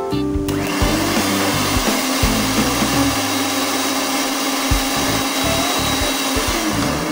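Electric stand mixer running steadily, its twin beaters whipping cream in a bowl, with a steady motor hum; background music plays underneath.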